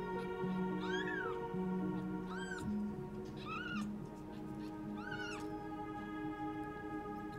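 A newborn kitten mewing four times in short, high-pitched cries that rise and fall, the last one about two-thirds of the way through. Background music with held notes plays throughout.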